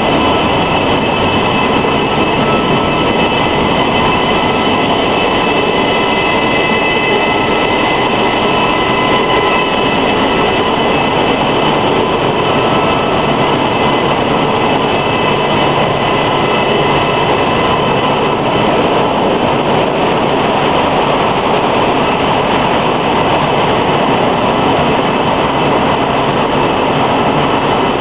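Mineral-water bottling line running, its conveyors carrying plastic bottles: a loud, steady machine din with several high whining tones over it.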